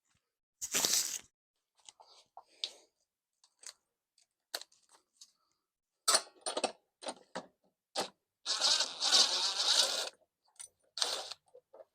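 Hand tools working on metal: a wrench loosening the mower deck's belt tensioner bolts, with scattered clicks and clanks, a sharp clatter just under a second in, and a longer rattling stretch a little past the middle.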